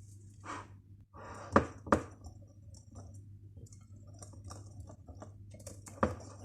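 Spoon knocking and scraping against a bowl while cake batter is mixed, with a few sharp knocks, two close together about a second and a half in and one near the end.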